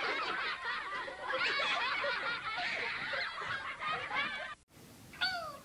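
Cartoon sound effects for a Nickelodeon logo: a dense jumble of short, high, wavering sliding sounds that stops abruptly about four and a half seconds in, followed by a few falling sliding tones near the end.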